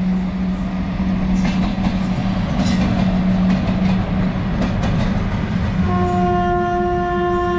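A pair of WAG-5 electric locomotives passing close by: a steady hum over rumbling and clatter of wheels on the rails, then one long, steady horn blast starting about six seconds in.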